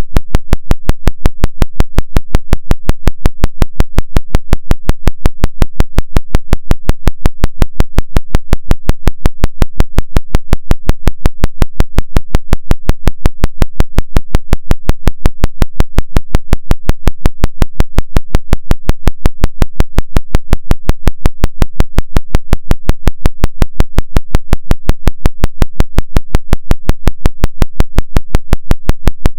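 Isochronic tone for brainwave entrainment: a fast, perfectly even train of sharp pulses, about five and a half a second (5.5 Hz, the theta range), over a steady low hum.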